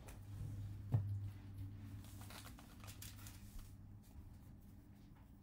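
Baseball trading cards being slid and flipped against each other in the hands, a soft scraping with a sharp click about a second in, over a low hum that stops about four seconds in.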